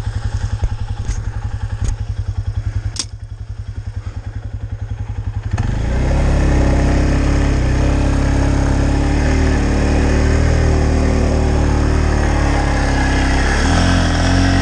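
A vehicle engine idling with a rapid, even pulse, then about five and a half seconds in it revs up and runs hard and loud for several seconds, the pitch wavering as it works, before easing off right at the end.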